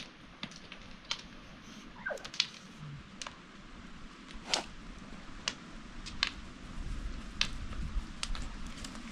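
A wood fire crackling, with irregular sharp pops, over soft sounds of hands pinching and working bread dough.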